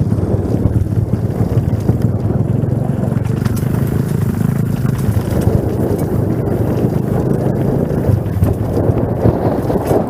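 Mountain bike rolling over rough off-road ground: steady rumble and rattle from the tyres and frame, with irregular clattering knocks.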